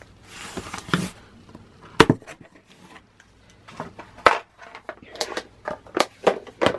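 Corrugated cardboard shipping box being opened by hand: a rustling scrape about half a second in, then sharp knocks of the cardboard flaps around two and four seconds in, and a run of quicker taps and knocks near the end.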